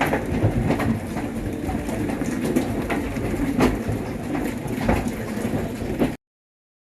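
Thunderstorm with heavy rain and strong wind rushing, punctuated by a few sharp knocks of hail striking. It cuts off suddenly about six seconds in.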